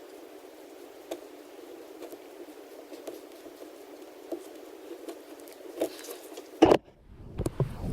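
Handling noise from work on an iPad mini: light scratches and small clicks over a steady faint hiss, with one loud knock near the end.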